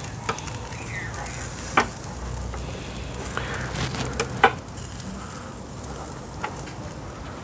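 Lamb shashlik skewers sizzling over hot charcoal in a mangal: a steady hiss broken by scattered sharp crackles, the two loudest about two seconds and four and a half seconds in.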